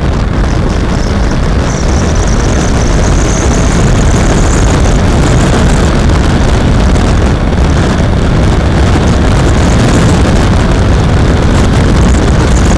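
Suzuki DL650 V-Strom's V-twin engine running steadily while riding, heard through a camera mounted on the bike, mixed with a loud, even rush of wind and road noise on the microphone.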